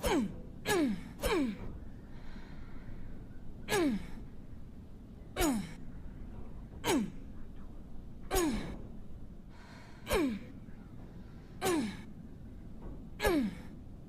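Survival-knife sound effect repeated about ten times: each a sharp hissing swish with a tone that drops quickly in pitch, coming at uneven gaps of roughly half a second to two seconds.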